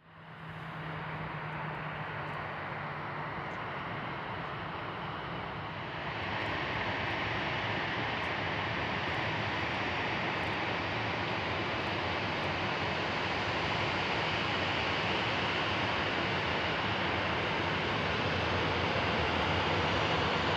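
Boeing 737-800's CFM56 jet engines running: a steady jet noise that steps up in level about six seconds in and then holds.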